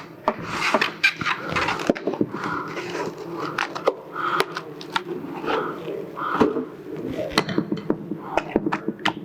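Eggs being cracked and stirred into mixing bowls, with repeated sharp taps and knocks of shell and utensils against the bowls and bursts of scraping as the batter is mixed.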